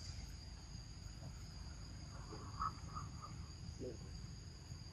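Steady high-pitched chorus of insects, with a low rumble underneath and a few faint short chirps about halfway through.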